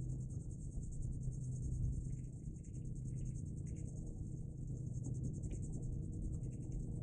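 Wind rumbling on the microphone, under a steady, high, rapidly pulsing insect-like buzz.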